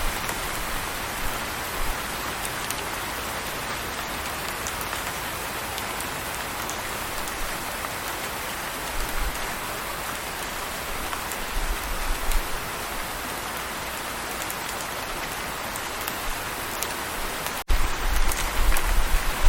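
Steady rain falling, an even hiss with scattered drop ticks, and a low rumble that swells now and then. Near the end the sound drops out for an instant, then comes back with the rumble stronger.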